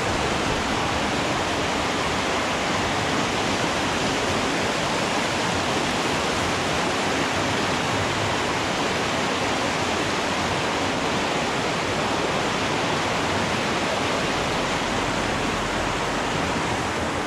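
Loud, steady rushing of whitewater rapids in a mountain trout stream, an even roar with no breaks.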